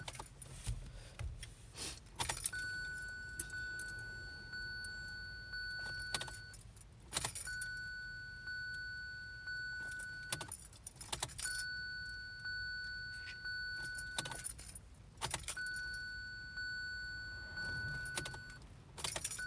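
Ignition key of a 2017 Kia Sorento being turned again and again with no start: keys jangle and click five times, about four seconds apart. No engine cranks or catches. A steady high electronic tone sounds between each turn and cuts off at the next one.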